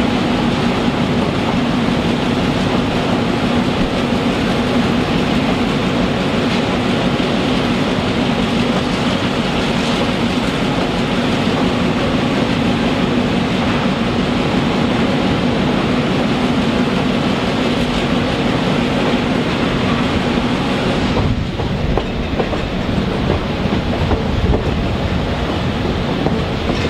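Ex-Santa Fe EMD GP7 diesel locomotive running as the excursion train rolls along, a steady engine hum under rail and wheel noise with the clickety-clack of wheels over rail joints. A few seconds before the end the hiss drops away and the sound turns duller.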